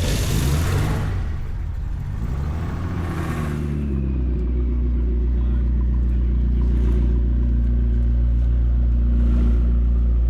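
A motor vehicle's engine running: its pitch drops over a second or two, then it settles into a steady, low, deep-toned idle.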